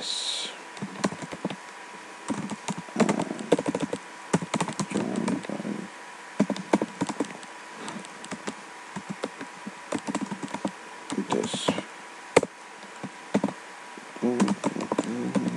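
Typing on a computer keyboard: a run of irregular keystroke clicks, with short pauses between bursts.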